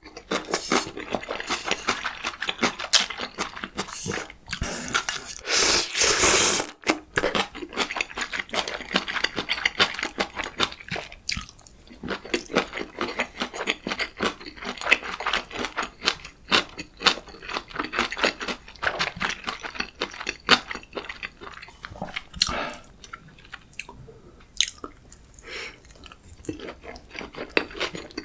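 Close-miked eating: a person chewing a meal of ramyeon and gimbap, a steady run of small wet clicks and crunches, with a louder noisy stretch about five seconds in.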